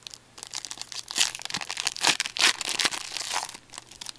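Foil wrapper of a Pinnacle Mint hockey card pack being torn open and crinkled by hand: a run of crackles with the loudest rips a little after one second in and again around two seconds in, quieting near the end.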